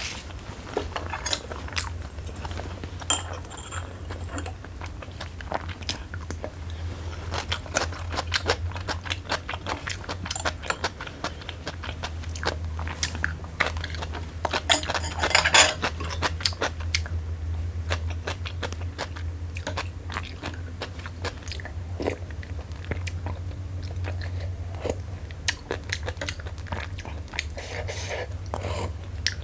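A person chewing and biting food close to the microphone: a dense run of wet clicks and crunches, with a louder burst about halfway, over a steady low hum.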